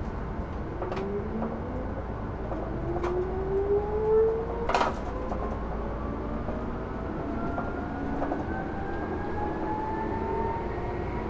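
Tokyu 8500 series electric train heard from the driver's cab as it accelerates: the traction motors' whine climbs steadily in pitch. A few sharp clacks of wheels over rail joints come through the running noise, the loudest about five seconds in.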